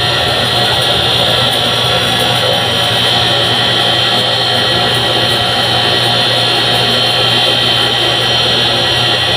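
A loud, steady roar with a constant low hum, running without a break.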